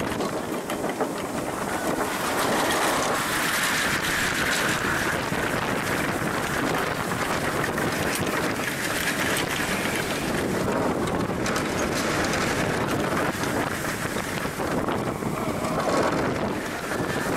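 Wind buffeting an on-ride camera and the steel roller coaster train's wheels rumbling along the track, a steady loud rush of noise as the motorbike coaster runs through its course.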